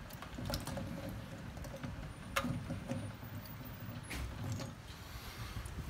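Boiled salted duck eggs clicking against one another and the basin as they are lifted by hand out of a basin of water and put into a plastic mesh net bag. A few sharp separate clicks, the loudest a little before halfway.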